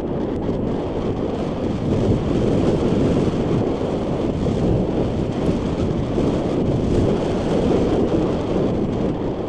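Steady low rumble of wind buffeting a body-mounted action camera's microphone, mixed with the tyres of a mountain bike running fast down a dirt trail.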